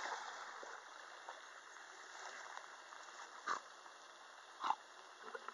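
Faint outdoor background hiss with pond water sounds that fade away over the first second. Two short soft knocks come about three and a half and four and a half seconds in.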